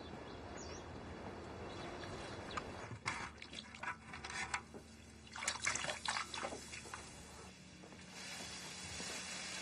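A ladle stirring and scooping liquid in a large steaming wok of noodles cooking, with liquid pouring and splashing and a few light clinks of utensil on metal and bowls, mostly in the middle of the stretch.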